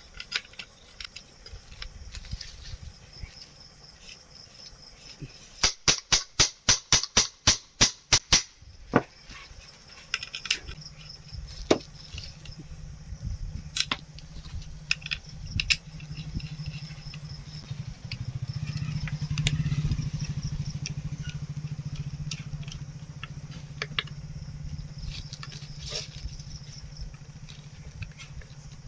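About a dozen sharp knocks in quick succession, followed by a low steady hum that swells and then eases. Crickets chirp steadily throughout.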